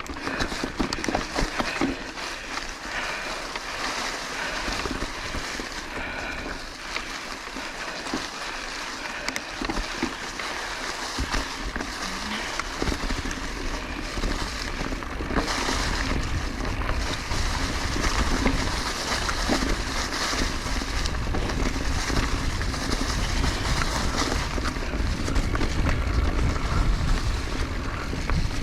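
Orbea Occam mountain bike rolling along a dirt trail: tyre noise and a constant light rattle of chain and frame over bumps. Wind rushes over the camera microphone, growing stronger a little before halfway through.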